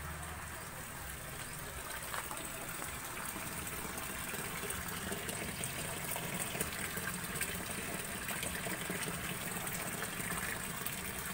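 Water pouring and splashing into a shallow concrete tank of catfish fry, a steady rushing noise that grows a little louder over the first few seconds.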